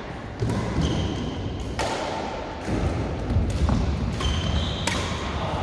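Badminton rackets striking the shuttlecock during a doubles rally, sharp smacks a second or more apart, echoing in a large sports hall. Short high squeaks of court shoes and footsteps on the court floor come between the hits.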